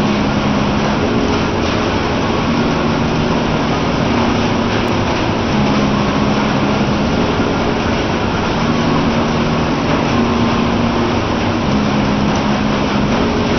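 Heavy monsoon rain pouring steadily, a dense, even hiss of downpour. Faint background music plays underneath, with low held notes that change every second or two.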